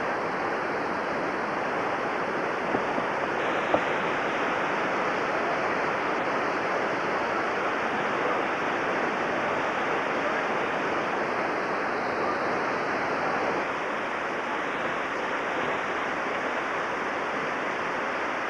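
Whitewater rapids rushing steadily, a continuous river roar close to the microphone. A couple of faint clicks stand out about three and four seconds in.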